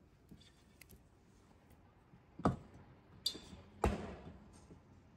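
Three sharp taps or knocks, each ringing briefly, starting about halfway through, with a few faint small clicks before them.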